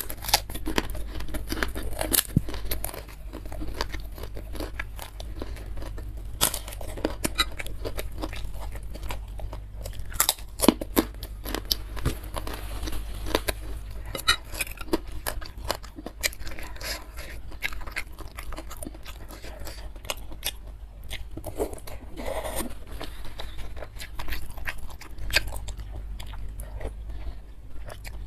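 A mouthful of crisp white kerupuk cracker being crunched and chewed: a long string of short sharp crunches with chewing in between, densest at the start.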